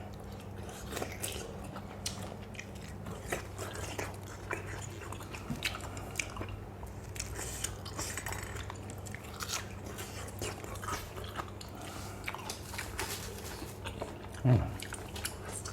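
Close-miked chewing of a spicy lotus-stem and fresh-shrimp salad: many small wet clicks and crunches, over a steady low hum. One louder low thump comes near the end.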